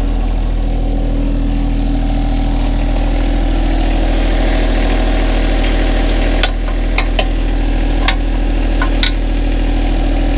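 John Deere 1025R compact tractor's three-cylinder diesel idling steadily. In the second half come several sharp metallic clicks as the backhoe mounting pins are handled.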